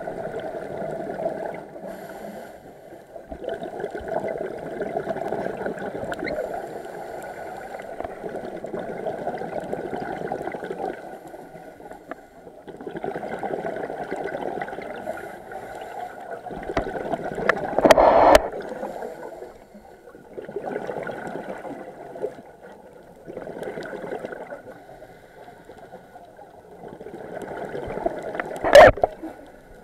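Scuba diver's regulator underwater: bursts of exhaled bubbles every few seconds, each lasting a couple of seconds, with quieter pauses for each breath in. Two sharp knocks, one about halfway through and one near the end, are the loudest sounds.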